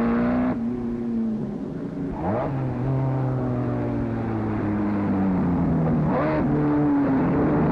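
Grand Prix racing car engines running at high revs as cars pass one after another, each engine note sliding down in pitch as the car goes by. The sound changes abruptly twice, about two seconds in and again near six seconds.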